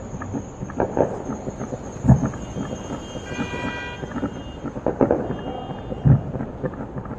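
Aerial fireworks going off: a continuous run of cracks and bangs, with two heavy booms about two seconds in and about six seconds in, and a brief whistling tone midway.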